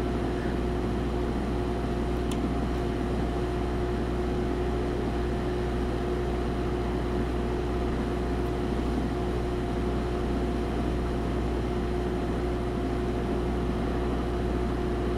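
Heat gun running steadily, its fan blowing hot air with a steady whine over a low hum, heating solder on a circuit board.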